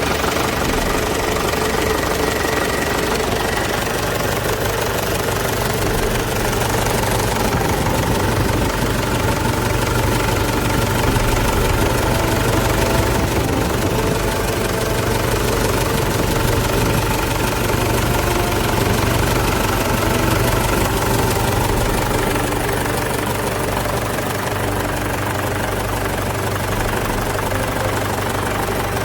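Mahindra 475 DI tractor's diesel engine idling steadily.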